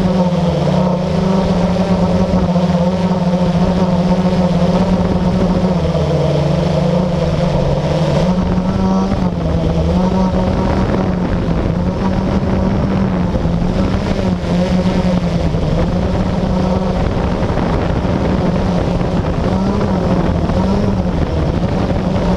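Blade 350QX quadcopter's four brushless motors and propellers droning steadily close to the onboard camera in flight. The pitch wavers up and down as the motors adjust, with a brief dip about six to eight seconds in.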